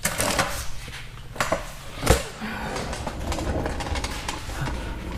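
Handling noise of a camera being moved under a car: rustling and scraping with a few sharp knocks, the loudest about two seconds in, over a low steady hum.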